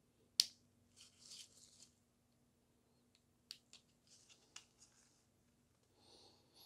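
Small side cutters snipping a thin plastic strip: a sharp snap about half a second in and another about three and a half seconds in, with scraping and small clicks of plastic being handled between cuts.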